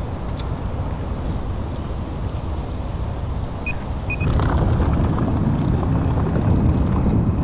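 Wind buffeting the microphone: a steady low rumble that gets louder about four seconds in as a gust picks up.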